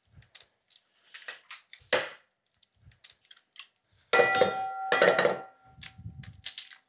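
Eggs cracked against a white enamel bowl: light taps and shell crackles, then two loud knocks about four and five seconds in that set the bowl ringing, the ring fading near the end.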